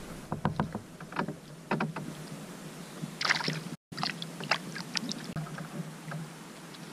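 Water splashing about three seconds in as a small rock bass is let go back into the lake by hand, among short clicks and knocks of handling in the canoe.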